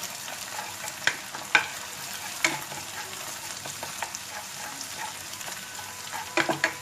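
An egg frying in hot oil in a frying pan: a steady sizzle, with a cooking utensil knocking and scraping against the pan several times, a quick pair of knocks near the end.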